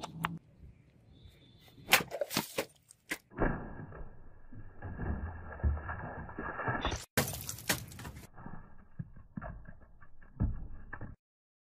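A katana blade slicing through water-filled plastic bottles, with sharp cracks, splashing water and cut bottle pieces clattering, followed by strikes into a wooden plank. The sounds come in separate bursts with abrupt breaks between them.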